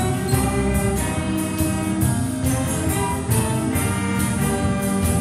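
High school jazz band playing: brass and saxophones over piano and bass, with the drum kit keeping a steady beat.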